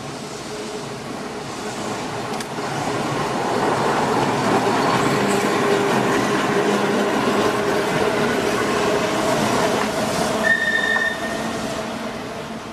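Manx Electric Railway tramcar and trailer passing close on the track: running noise that builds over the first few seconds, stays loud and then fades as the cars draw away. There is a brief high tone about ten seconds in.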